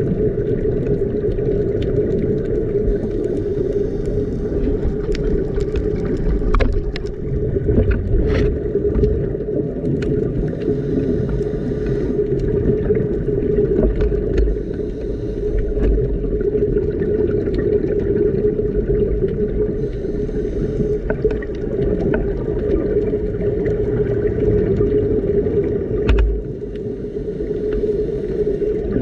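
Underwater sound on a scuba dive: a steady low drone, with a diver's exhaled bubbles rushing out in a burst every six to eight seconds.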